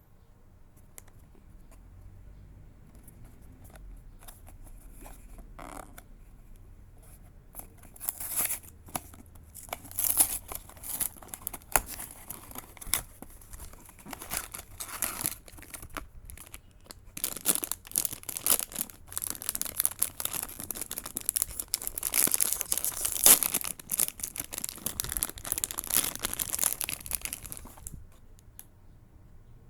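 Blind-box packaging being torn open and crinkled by hand: quiet fumbling at first, then a long stretch of irregular tearing and crinkling from about eight seconds in, which stops a couple of seconds before the end.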